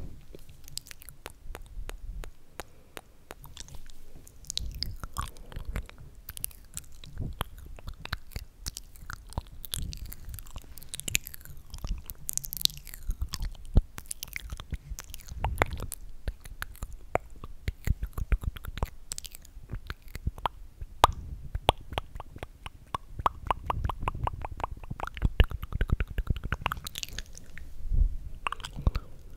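Close-miked wet mouth sounds: tongue clicks and lip smacks, irregular at first, with two long runs of quick, even clicking in the second half.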